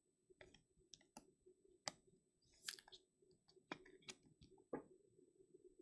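Faint, irregular clicks and taps of trading cards and a clear plastic card holder being handled and set down, over a faint steady low hum.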